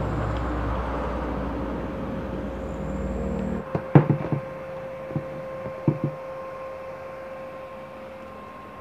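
A steady electrical hum from a Lakoni Falcon 120e inverter welder that is switched on with its cooling fan running. Under it, a low rumbling handling noise stops suddenly about three and a half seconds in. Then come several sharp knocks and clatters over the next two seconds, from the electrode holder, clamp and scrap metal being picked up and set down on the workbench.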